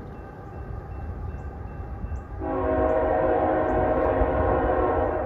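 Diesel freight locomotive's air horn sounding: it comes in faintly, then one long loud blast starts about halfway in and holds to the end. Underneath is the steady low rumble of the train.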